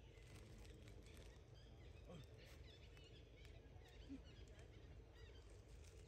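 Near silence: faint outdoor background with scattered faint high chirps.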